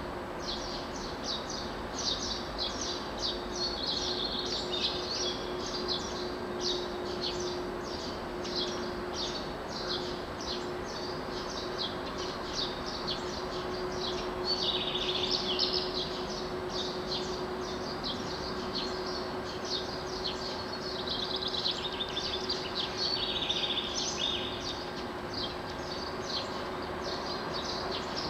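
Dawn chorus of songbirds: many short chirps and trilled phrases overlapping without pause, over a steady low hum.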